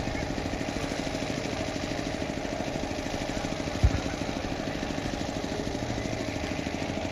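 A small engine running steadily at idle with a fast, even pulse, and a single low thump a little under four seconds in.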